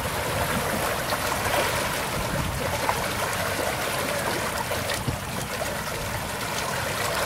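Water rushing and splashing along a sailboat's hull as it sails, a steady hiss with small splashy ticks.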